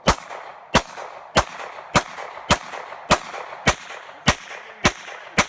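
Semi-automatic Glock pistol fired in a steady rapid string, about ten shots evenly spaced a little over half a second apart, each with a short echo.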